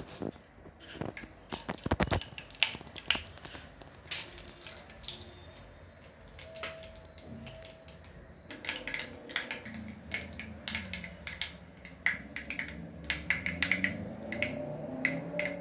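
Mustard seeds crackling in hot oil in a kadai: scattered sharp pops at first, coming thick and fast from about halfway through as the seeds begin to splutter. This is the tempering stage of a curry, where the popping seeds show that the oil is hot enough.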